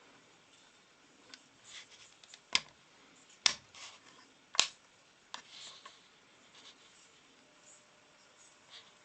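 Three sharp clicks about a second apart near the middle, with lighter rustling and small ticks around them, like small objects being handled.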